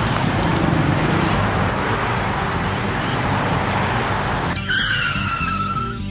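Sound effect of a vehicle moving fast with tyre skid noise: a steady rushing noise that gives way, about four and a half seconds in, to a high tone sliding slowly downward.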